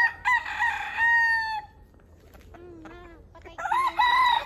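Native chicken roosters crowing: one long crow at the start and another beginning about three and a half seconds in, with softer short clucking calls between them.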